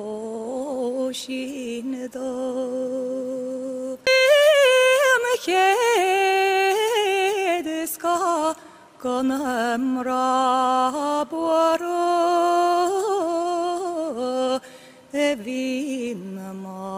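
A woman singing sean-nós, the traditional Irish style of unaccompanied solo singing. A single voice holds long notes ornamented with small turns and wavers. She sings louder and higher from about four seconds in, with two short breath pauses, one about halfway through and one near the end.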